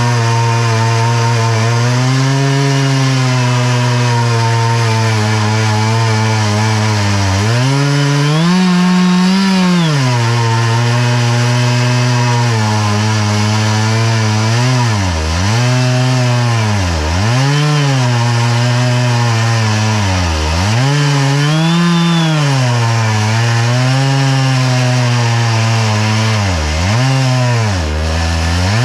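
Stihl chainsaw on an Alaskan chainsaw mill running at full throttle while ripping an oak log lengthwise. The engine note holds fairly steady, then rises briefly, and in the second half dips sharply in pitch and recovers several times as the chain works through the hardwood.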